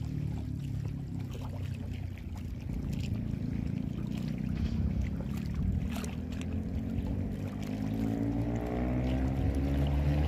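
Motorboat engine running over choppy harbour water, growing louder near the end as the boat draws nearer.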